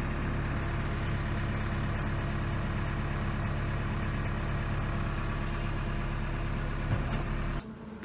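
JCB 3DX backhoe loader's 4.8-litre JCB 448 naturally aspirated four-cylinder diesel idling steadily, heard from inside the cab. The sound breaks off abruptly near the end.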